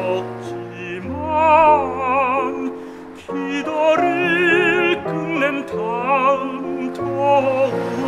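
A tenor sings a Korean art song in operatic style with wide vibrato over a sustained instrumental accompaniment. There is a brief breath between phrases about three seconds in.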